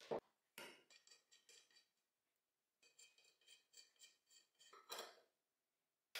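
Quiet metallic clinks and rattles as a bolt, washer and nut are fitted by hand through a steel mounting plate and a motor's steel bracket, the plate ringing faintly. A knock right at the start, and a sharper clink at the very end.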